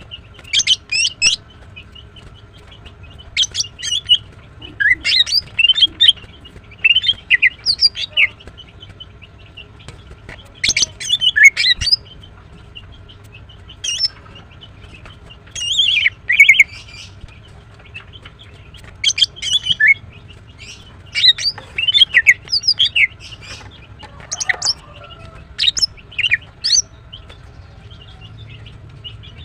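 Female greater green leafbird (cucak ijo) calling: short bursts of quick, high chirps and whistled notes, repeated every second or two with brief pauses between them.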